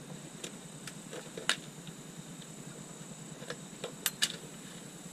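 Scattered light clicks and knocks of a D.I.D 428 X-ring motorcycle chain being handled on the sprocket and chain guide, about seven in all, the sharpest pair about four seconds in, over a faint steady hiss.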